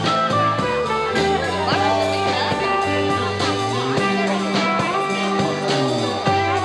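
A small band with electric lead guitar, rhythm guitar, bass guitar and drums plays an instrumental passage. A bass line moves under bending guitar lines, with a steady drum beat.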